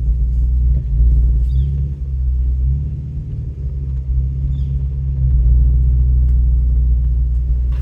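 Off-road truck's engine running at low speed with a steady low rumble; it eases off a little a few seconds in and picks up again past the middle.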